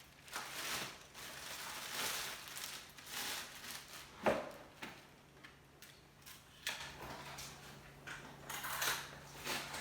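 Handling of plastic vacuum-cleaner parts and their packaging: irregular rustling and crinkling, with a sharp knock about four seconds in.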